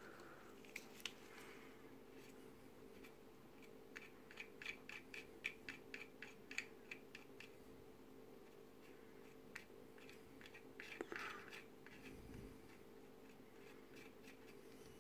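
Faint scratching and ticking of a cotton bud rubbed over a plastic model part to wipe off excess glue. A run of quick strokes comes in the middle and a short scrape comes later, over a low steady hum.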